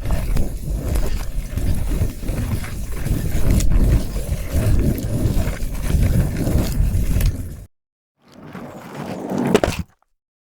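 Skateboard wheels rolling over pavement: a steady low rumble with a few sharp clicks, about seven and a half seconds long and cut off suddenly. After a short gap, a second, shorter roll grows louder and ends on a sharp click a little before ten seconds in.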